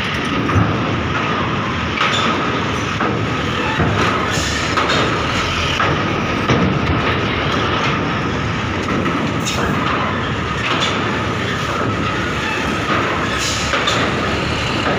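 Heavy Hino box trucks driving slowly over a ferry's steel loading ramp. Their diesel engines run under a steady rumble and clatter from the wheels on the steel plates, with loud irregular clanks every second or two.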